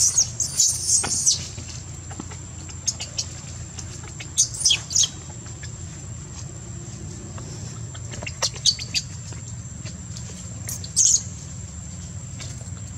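Newborn long-tailed macaque giving short, high-pitched squealing distress cries in bouts: at the start, again a few seconds in, near nine seconds and near eleven seconds. A steady high whine runs underneath.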